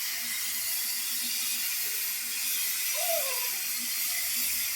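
Steam hissing steadily from the whistle line fed by a steam locomotive, with no whistle note sounding; faint voices of people in the background.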